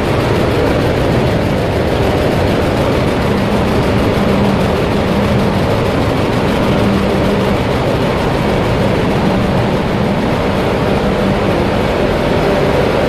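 Container ship's engine room machinery running at sea: a loud, steady drone with a low hum that fades in and out, the normal running sound of the engine room.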